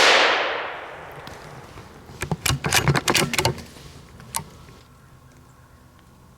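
A single rimfire rifle shot at the very start, its report echoing through the woods and dying away over about a second and a half. About two seconds in comes a quick run of crackles in dry leaves lasting a second and a half, with one more a little later: the shot squirrel landing on the ground and running off.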